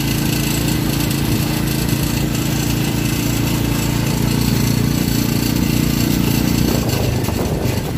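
The engine of a small passenger vehicle running steadily under way, heard from inside the open cabin. Its note changes about seven seconds in.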